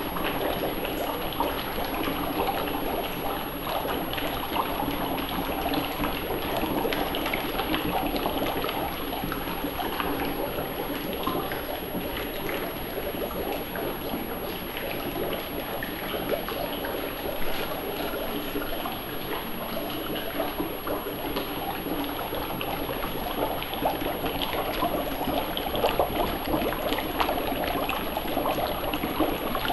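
Dry ice bubbling in water inside a small cauldron: a steady, dense gurgling and fizzing as the ice boils off into fog.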